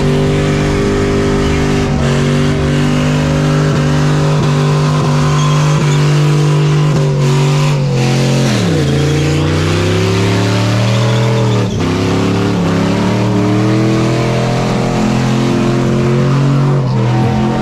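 Pickup truck engine held at high, steady revs during a burnout, rear tyres spinning on the pavement. The revs dip and climb back about eight seconds in and again about twelve seconds in, then fall away near the end.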